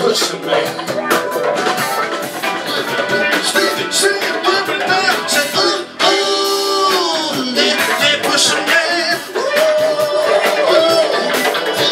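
Live band music: electric guitar and drums, with a man singing. About halfway through, a held note slides down in pitch.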